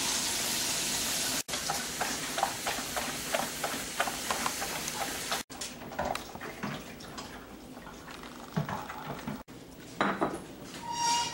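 Cocker spaniel lapping beer from a bowl: a run of quick, wet laps and light clinks against the dish, thinning out after about five seconds. It opens with a steady hiss for about a second, and a brief high-pitched sound comes near the end.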